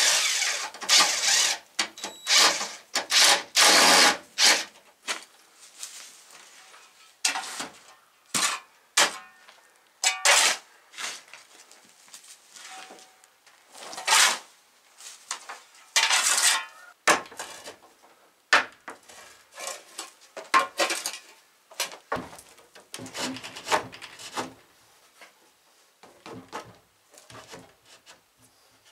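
A long-handled tool scraping and dragging across a dirt floor in irregular strokes. The strokes are loudest in the first few seconds and again about halfway through, with sharper scrapes and knocks scattered between them.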